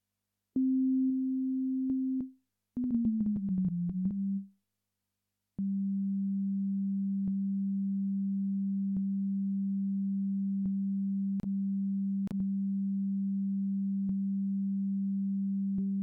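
Ableton Operator synthesizer sounding a plain sine-wave tone. A short held note is followed by a tone that slides down in pitch under a quick run of small clicks. Then a steady lower tone holds, with an occasional click, and a faint higher tone joins near the end.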